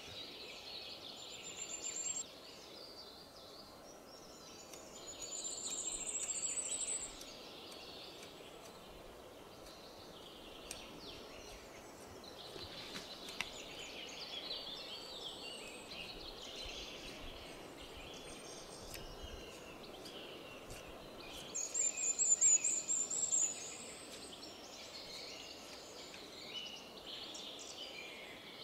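Woodland birds singing steadily, with a high, rapid trill that comes three times, the third one loudest. Now and then a faint tick or scrape of a knife whittling a stick.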